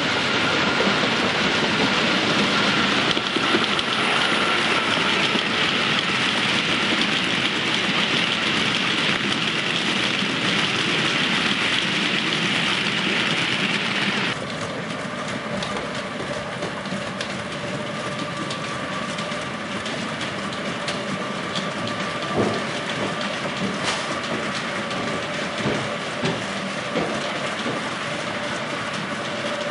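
Model trains running on a 7mm-scale layout. A steady rushing noise with a faint whine cuts off abruptly about halfway, leaving a quieter motor hum with a few sharp clicks of wheels over rail joints.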